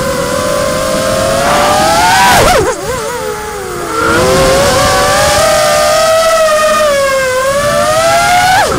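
Electric motors of a small radio-controlled aircraft whining, the pitch rising and falling with the throttle. About two and a half seconds in, and again near the end, the pitch drops suddenly and wobbles before climbing back.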